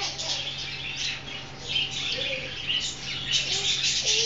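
A flock of small birds chirping and chattering continuously, many calls overlapping.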